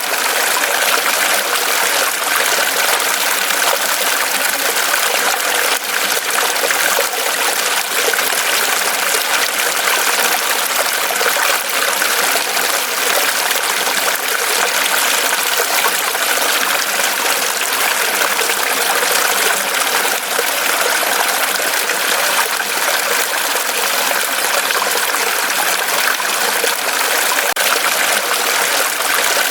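Mountain stream running over rocks, a steady splashing and trickling rush of water with no change in level.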